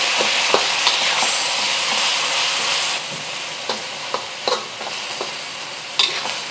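Pork searing in hot oil in a wok, sizzling steadily with scattered pops and clicks. The sizzle drops a little about three seconds in.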